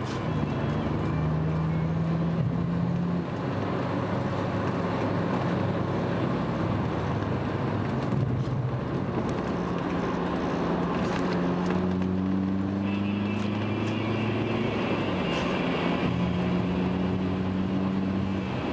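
Car engine and tyre noise heard from inside the cabin while driving, the engine's low hum drifting up and down in pitch with speed.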